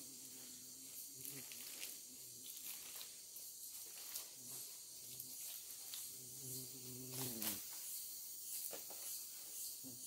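A man's low, drawn-out vocal call to bring the forest animals to the corn bait, heard in stretches and dropping in pitch about seven and a half seconds in. Faint forest insects buzz high behind it.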